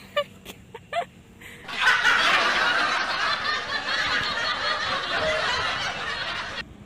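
Laughter: a few short chuckles, then about five seconds of dense group laughter that cuts off suddenly, like a laugh-track sound effect.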